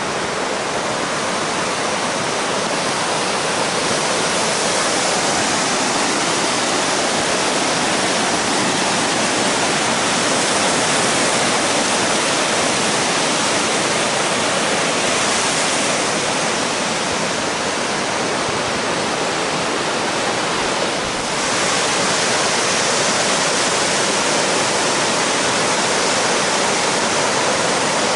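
Steady hiss and wash of ocean surf breaking along a sandy beach, with a brief dip in level about three-quarters of the way through.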